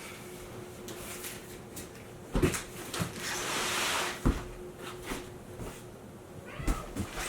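Handling noises from a large cardboard box being moved: three sharp knocks and a rustling, sliding scrape between the first two.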